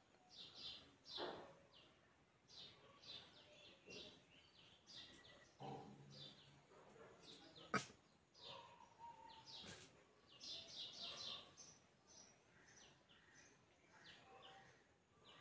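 Faint background bird chirping: short, high chirps in scattered bursts, with one quick run of them about two-thirds of the way in. A single sharp click comes near the middle.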